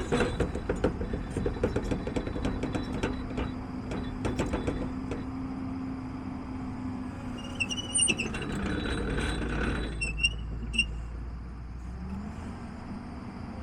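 Volvo EC290LC excavator running, with a steady engine hum and rattling clanks over the first few seconds. Short high squeals come between about eight and eleven seconds in.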